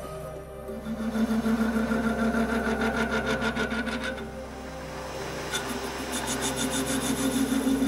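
WEISS WBL290F bench lathe running with its chuck spinning on a thread-cutting job, a steady motor and gear hum under a fast, even clatter. The clatter drops out about four seconds in and returns about a second and a half later.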